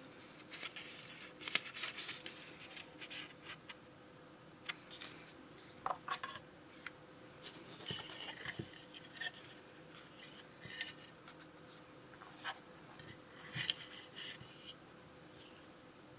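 Hands handling unboxing packaging: irregular paper and cardboard rustles with light clicks and taps of plastic parts as a roll of labels is taken out, over a faint steady hum.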